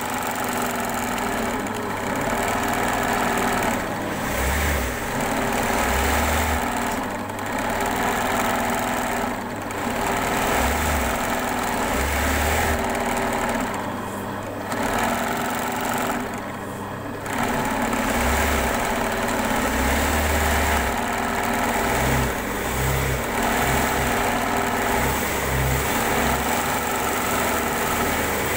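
Electric sewing machine running steadily as its needle stitches an embroidery outline through hooped fabric, with a couple of brief slowdowns about halfway through.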